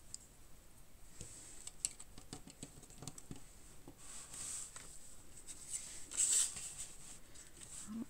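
Faint clicks and taps of plastic building bricks being handled and fitted together, with two brief rustles, one about halfway and one a little after six seconds.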